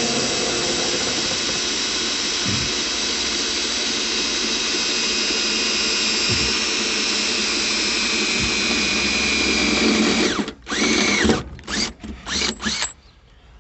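Makita electric drill running steadily for about ten seconds as it drills a bolt hole into the metal of a 1955 Chevy pickup, then stopping and being pulsed in several short bursts near the end.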